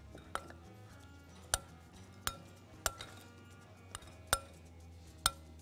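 Metal spoon clinking against a glass mixing bowl while stirring sliced red onions, about seven sharp clinks at uneven intervals.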